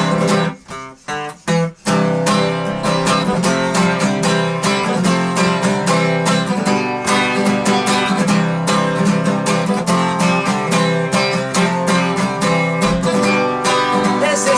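Acoustic guitar strummed in an instrumental passage of a live song. It opens with a few short, cut-off chords and gaps, then settles into steady strumming.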